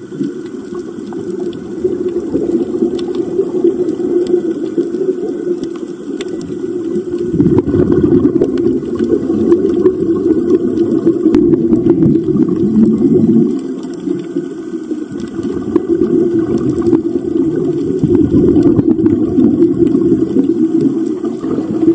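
Underwater sound during a scuba dive: a loud, low rushing and gurgling of water and divers' exhaled regulator bubbles, swelling and easing every few seconds.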